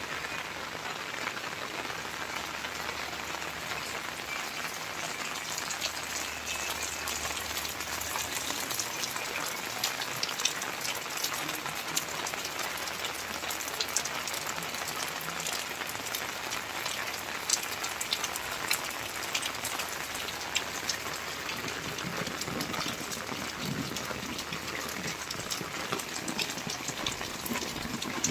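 Steady rain falling, with many sharp ticks of individual drops striking nearby surfaces.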